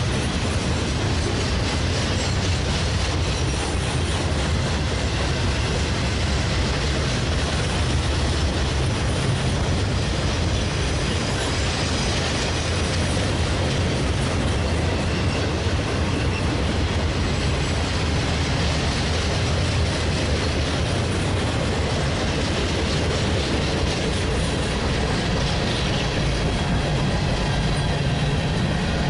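Freight train cars (boxcars, then covered hoppers) rolling past close by: steady, loud rumble and clatter of steel wheels on the rails.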